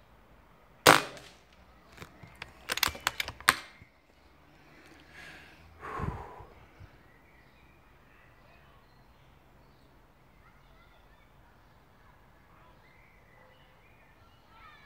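A .22 Webley Mastiff air rifle fires one shot, a single sharp crack about a second in. It is followed a second later by a quick run of mechanical clicks as the action is cycled to load the next pellet, and a duller thump a few seconds later.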